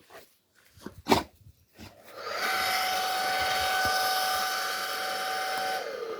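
A small electric motor appliance switches on about two seconds in and runs with a steady whine over rushing air. Near the end it is switched off and its pitch winds down. A few short knocks and one louder thump come before it.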